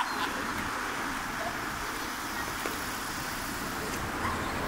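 Steady outdoor background noise: an even low rumble and hiss of distant road traffic, with faint voices.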